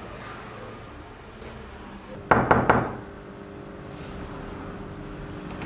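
Three quick knocks on a wooden door, a little over two seconds in.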